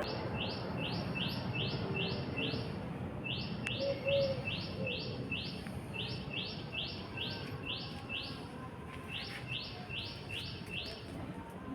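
A songbird repeating one sharp, high chirp about three times a second in runs of several seconds with short breaks, over a low steady background hiss.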